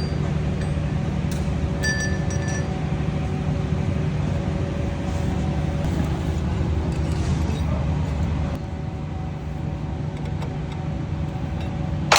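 A steady mechanical hum with several low tones, dropping a little in level about two-thirds of the way through. A few light metallic clinks and a short ring sound near the start, typical of engine parts and tools being handled.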